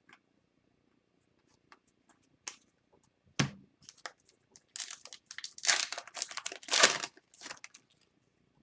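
Foil trading-card pack being torn open and its wrapper crinkled, with a few light clicks and a knock before the tearing.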